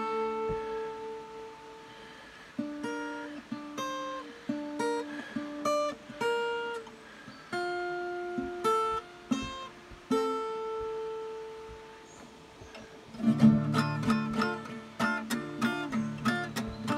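Acoustic guitar played solo, slow picked notes and chords each left to ring out, then a busier, faster picking pattern for the last few seconds.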